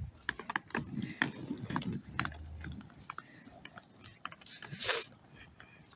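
Small wheels rolling over rough, cracked asphalt: a low rumble with irregular clicking and rattling. A short loud hiss comes about five seconds in.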